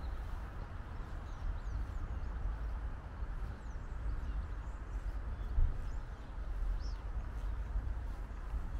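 Outdoor park ambience: a low wind rumble on the microphone, with a few faint bird chirps now and then and a soft thump a little past halfway.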